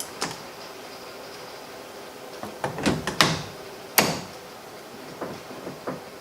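Irregular sharp clicks and clunks of the newly fitted steering-wheel quick-release hub being handled. There is a cluster in the middle and the loudest knock about four seconds in.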